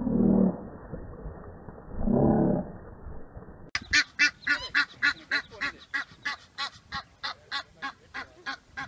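Egyptian goose honking in a rapid, harsh series of calls, about four a second, starting about four seconds in. Before that come two shorter pitched calls.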